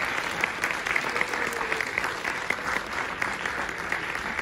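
Audience applauding: many hands clapping together in a dense, steady mass.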